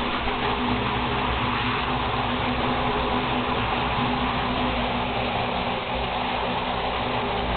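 Steady hiss of running shower water spraying into a bathtub, with a faint steady low hum underneath.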